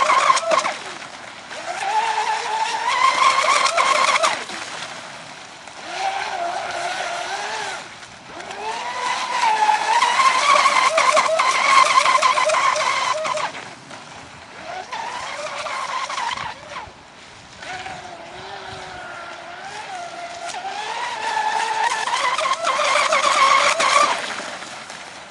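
Radio-controlled racing catamaran speedboat's motor whining at high pitch, rising and falling as the throttle is opened and eased off over several long runs.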